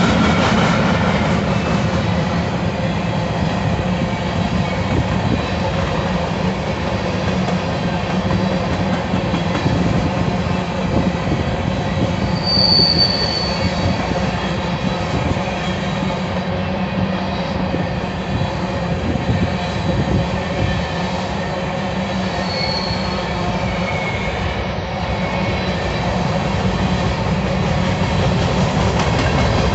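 Freight train of covered hopper cars rolling past: a steady rumble of steel wheels on rail. A brief high-pitched wheel squeal comes about 13 seconds in, and a shorter one about ten seconds later.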